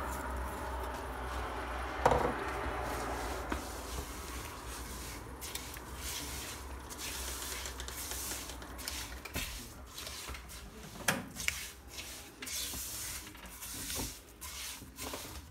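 Silicone spatula stirring and scraping semolina and jaggery around a nonstick pan: a run of dry rasping strokes, clearer from about five seconds in, with a knock about two seconds in and another near the eleven-second mark.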